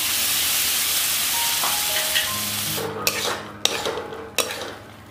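Water splashed into hot oil and spices in a kadhai sizzling with a loud hiss that dies down about three seconds in. A spatula then knocks and scrapes against the pan a few times as the masala paste is stirred.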